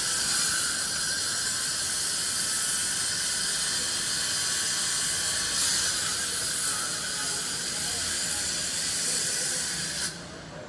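Steady high hiss that cuts off suddenly about ten seconds in.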